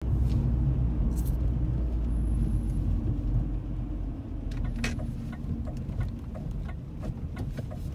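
Low, steady rumble of a car driving, heard from inside the cabin, easing off about halfway through. A scatter of light clicks comes in during the second half.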